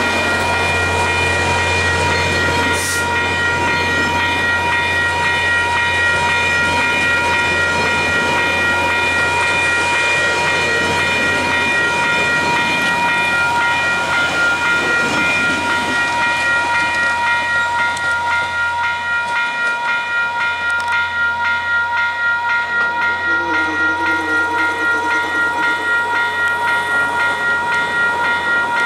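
LRC passenger coaches rolling past over a level crossing, with the crossing's warning bell ringing without a break. The train's rumble fades after about the middle, leaving the bell's evenly repeated strokes clearer.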